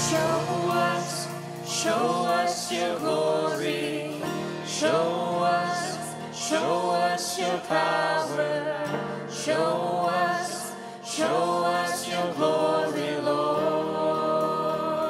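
Christian worship song: voices singing a melody over instrumental backing.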